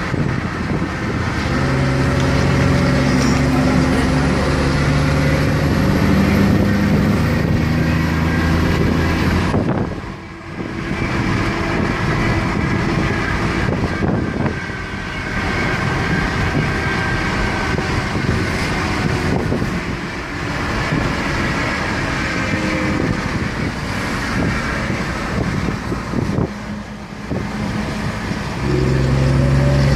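The 380 hp Cummins diesel engine of a Yutong bus running under load, with a thin high whistle that slowly rises from a few seconds in. Engine note and whistle cut off suddenly about ten seconds in. A quieter running noise follows, and the strong engine note comes back near the end.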